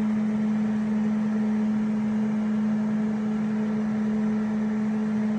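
Steady machine hum with a constant hiss, holding one even pitch without change.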